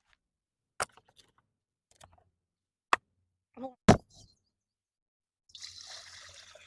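A few sharp knocks or clicks, as of hard objects set down or struck, the loudest about four seconds in, then a soft hiss near the end.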